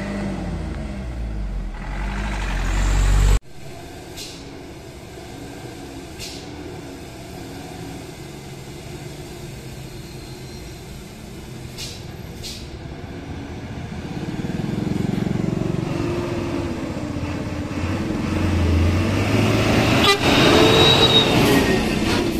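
Heavy truck diesel engines labouring on a steep climb. A loud rumble builds and then breaks off abruptly about three seconds in. After that another truck's engine grows louder and changes pitch as it comes up the bend, with a short horn toot near the end.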